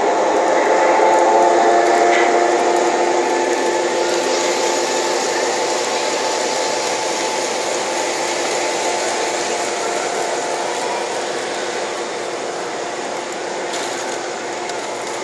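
Toy trains running on a layout: a steady electric-motor whine and the rattle of wheels on the track, loudest as a diesel locomotive passes close by, then slowly fading as the train runs on.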